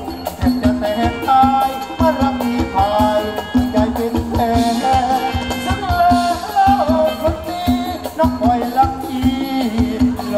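Live Thai ramwong dance band playing: a wavering lead melody over a steady drone and a quick, even low drum beat.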